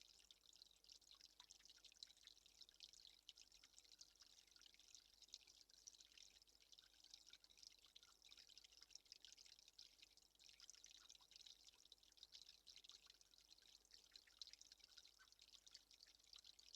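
Faint, steady trickling of water, a dense patter of fine crackly drips.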